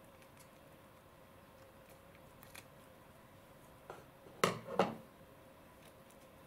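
Scissors snipping through a soft slime disc: faint clicks of the blades, then two sharp snips close together about four and a half seconds in.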